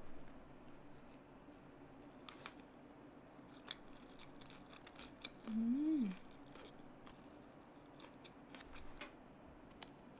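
Eating pepperoni pizza: scattered light crackles and clicks of the crisp crust and of handling, with a short 'mmm' of enjoyment, rising then falling, about halfway through.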